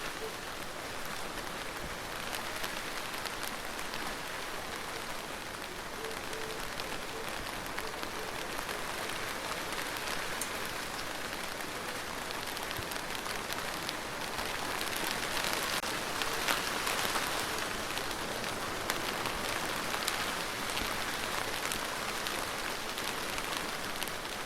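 Rain falling steadily, a dense patter of drops, getting a little heavier about halfway through.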